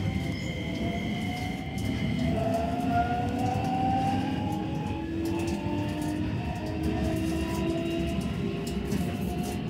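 Keisei 3100-series electric train accelerating from a station, heard from inside the car: the inverter-driven traction motors whine in several tones that rise in pitch one after another over a steady rumble of wheels on rail. Two high steady tones stop about two seconds in as the whine changes.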